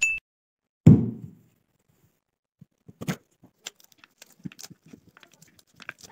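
A short high beep, then a loud deep thump just under a second in. After a brief pause, gloved hands break open a pomegranate: a run of small, crisp crackles and clicks as the rind splits and the seeds pull loose.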